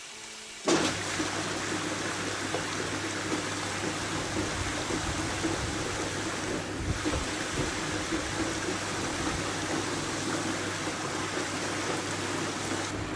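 Hollander beater switched on about a second in: its motor hums steadily and the beater roll churns the water, sending it rushing round the oval tub, with no pulp in it yet.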